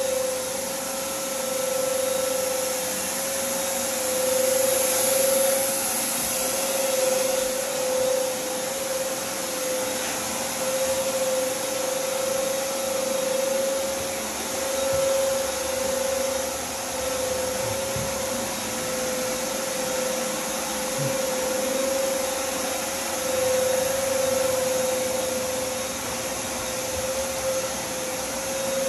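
Steady high whine of a blower motor over rushing air, like a vacuum or air-moving machine, running without a break at an even level.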